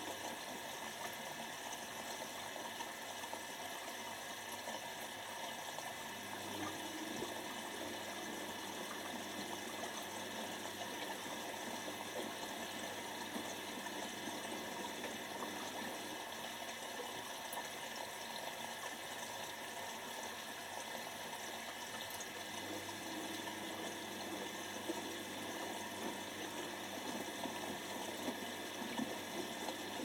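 Whirlpool AWO12963S front-loading washing machine on a wash cycle: the drum tumbling a wet load, water sloshing and splashing steadily inside.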